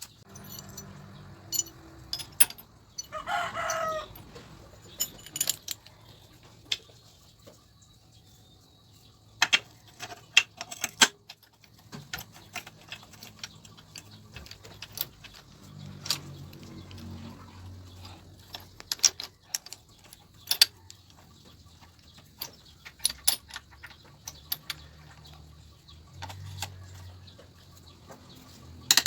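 A rooster crows once, about three seconds in. Sharp clicks and clinks of metal parts and tools being handled are scattered throughout and are the loudest sounds.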